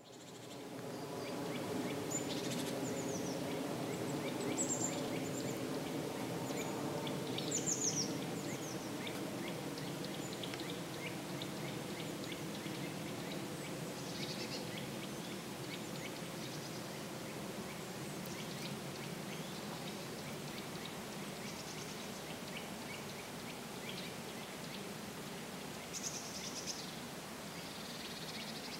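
Small birds calling and singing in short, high, scattered phrases over the steady rush of a river.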